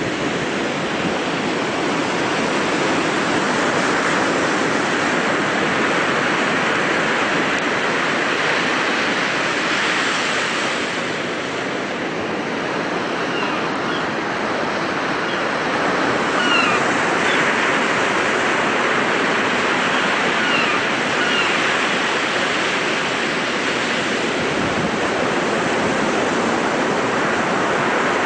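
Sea surf breaking and washing onto a sandy beach, a steady rushing that swells and eases gently. A few faint short high chirps are heard about halfway through.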